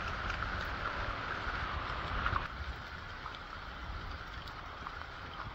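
Rain falling on the trees and the wet paved path, a steady hiss with a low rumble underneath, easing a little about halfway through.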